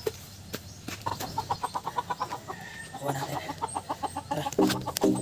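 A chicken clucking in quick runs of short notes. Music with a steady beat comes in near the end.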